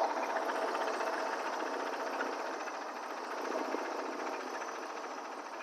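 Wood-Mizer LT40 Wide portable bandsaw mill running with its blade cutting through an oak log: a steady mechanical noise that slowly grows fainter.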